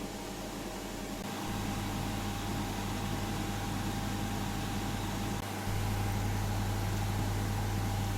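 Steady machine hum with hiss, getting louder in two steps: about a second and a half in, and again about five and a half seconds in.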